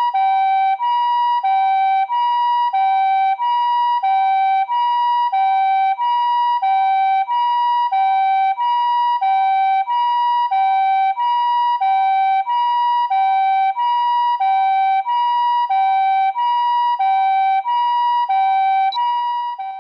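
Japanese ambulance's two-tone siren sounding its steady high-low 'pee-po' pattern, the higher and lower tones alternating about every two-thirds of a second. A click comes about a second before it cuts off.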